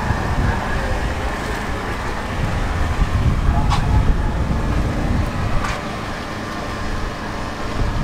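Steady low rumble of distant vehicle engines, with two faint clicks in the middle.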